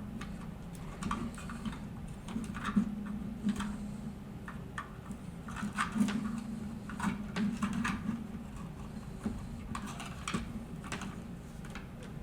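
Small irregular plastic clicks and scrapes: a servo connector being pushed and slid into a slot in a 3D-printed part by hand. A low steady hum runs underneath.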